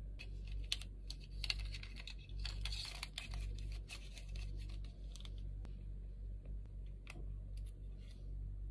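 Hands fiddling with a small black plastic part of a vlogging kit: scattered light clicks and some rustling, with a steady low hum underneath.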